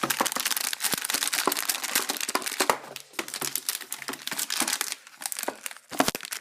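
Packaging crinkling and rustling in irregular rapid crackles as the instructions are pulled out of an Apple mouse box, with brief lulls about three and five seconds in.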